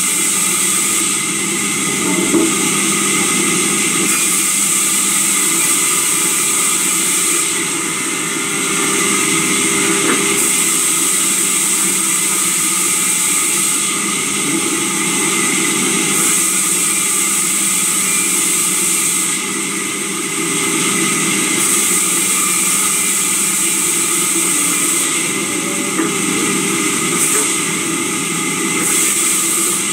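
Sawmill saw running steadily, with a hum of several constant tones and a high hiss that grows and fades every few seconds as timber is fed through the blade.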